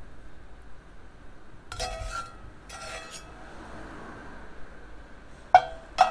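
Metal slotted spoon clinking against a cast iron Dutch oven and a plate as Brussels sprouts are scooped out: a few light clinks, then two sharp, louder knocks about half a second apart near the end.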